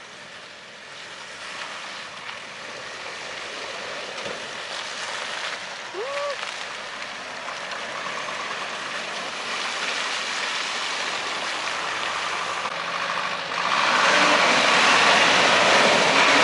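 Mitsubishi Pajero Sport SUV driving through mud on a dirt track, its engine and tyres growing louder as it comes near and passes. About fourteen seconds in, a much louder rushing noise starts as a GAZ-66 truck drives close by in the mud.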